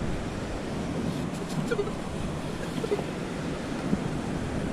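Steady ocean surf and wind on the microphone, with a few faint clicks about a second and a half in.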